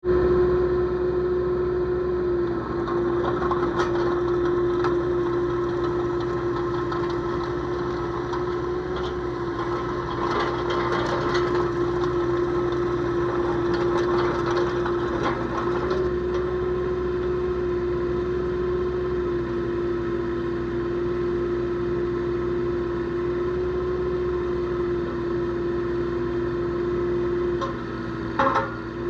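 Volvo EC18D mini excavator's diesel engine running at a steady speed, with a few short clatters and knocks from the machine now and then, the last one shortly before the end.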